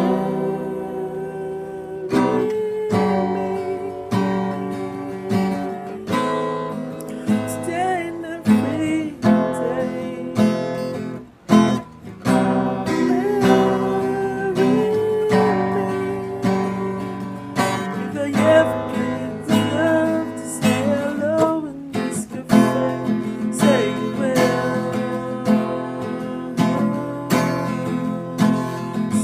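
Acoustic guitar strummed steadily in a song accompaniment, with a voice singing now and then.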